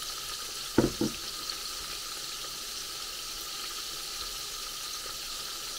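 Oil sizzling steadily in a frying pan around battered tempura pieces deep-frying. Two short knocks about a second in.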